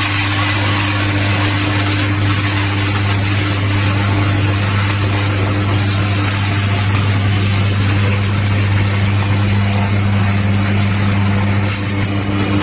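Sustained electrical arc at a burning roadside transformer: a loud, steady low buzz with a rushing hiss over it, the sound of a continuing short circuit.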